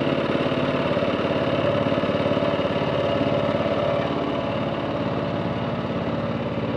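Small boat's engine running steadily, a fast even chugging with no change in speed.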